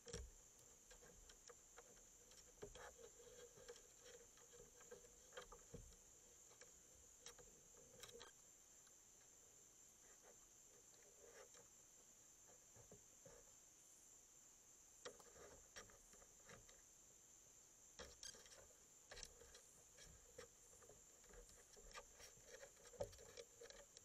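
Faint scattered clicks and soft rustling from raccoons moving and sniffing right against the trail camera, with a louder click near the end. Underneath runs a steady high-pitched night insect chorus.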